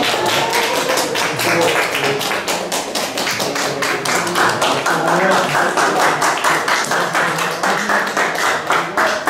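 A group of people applauding, fast and even hand claps, with voices beneath.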